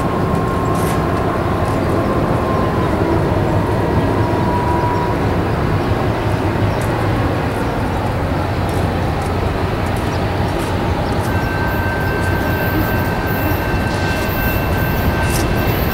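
Diesel locomotives of a CSX freight, three SD50-2s and an ES40DC, running steadily as they approach at the head of a tank-car train. A faint, thin, high squeal joins about eleven seconds in.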